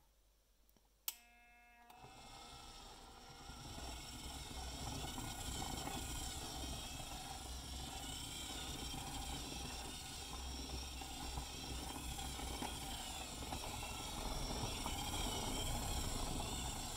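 3D-printed rotary tumbler switching on with a click and a brief tone about a second in, then its motor starting and building up over a couple of seconds into a steady run, the empty plastic drum rolling on its rollers with a wavering whine.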